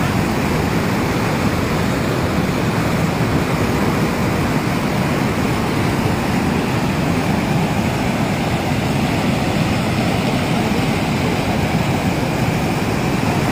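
Steady, deep rushing of a river in flood, a wide torrent of muddy floodwater surging past.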